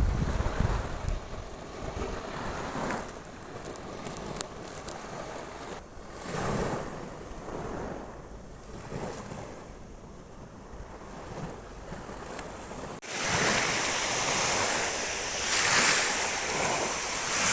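Sea waves washing onto a beach, swelling and easing, with wind rumbling on the microphone at the start. About thirteen seconds in the sound cuts abruptly to louder surf.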